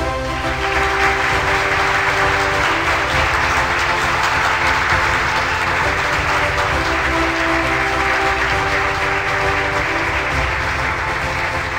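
Audience applauding over background music; the clapping starts at once and eases off near the end.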